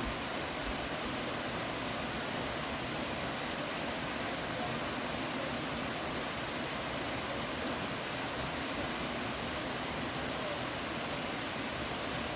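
Rushing water of a mountain stream, a steady, even hiss that holds without change.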